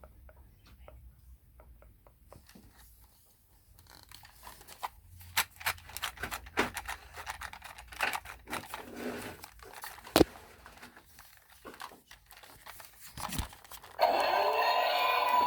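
Handling noise of a plastic toy: scattered clicks, knocks and rustling, with one sharper click about ten seconds in. Near the end the Thunderbird 3 toy's electronic sound effect switches on suddenly, loud and steady.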